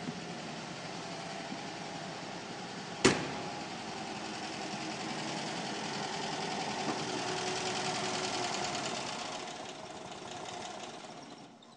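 1968 Fiat 500F's air-cooled two-cylinder engine idling after a restart, with the choke pulled out partway because it will not yet hold its idle on its own. One sharp bang comes about three seconds in, and the engine sound gets louder in the middle and fades away near the end.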